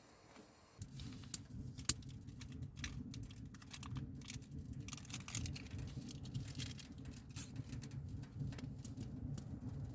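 A pot of ramen noodles cooking on a wood stove: a steady low simmering sound comes in about a second in and holds, with scattered sharp clicks and taps of a utensil against the pot.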